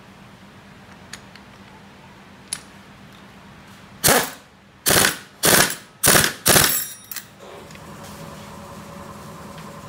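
Impact wrench driving the clutch nut tight on a Honda Wave RSX 110 engine, in five short hammering bursts starting about four seconds in. A faint steady hum follows.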